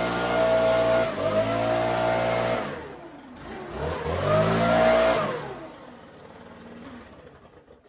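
An engine running, its pitch dropping twice, rising again around four to five seconds in, then falling and fading away.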